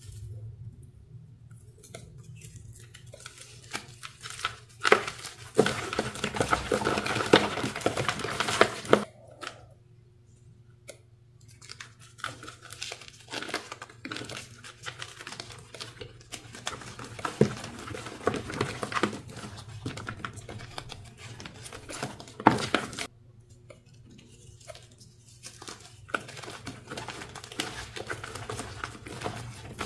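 Dyed gym chalk crushed and crumbled between the fingers: dry crunching and crackling in long bursts with short pauses, and a single sharp snap about two-thirds of the way through.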